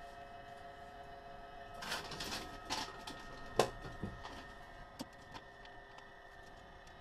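Handling noises in a light aircraft's cockpit with the engine still off: rustling about two seconds in as a headset goes on, then several sharp clicks, over a faint steady hum.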